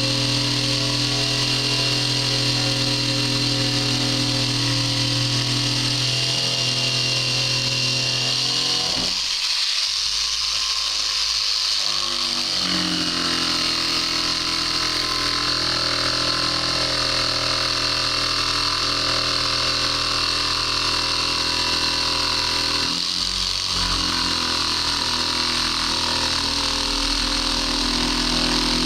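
A motor running steadily with a held, even hum; its pitch shifts briefly about nine seconds in and again near twenty-three seconds.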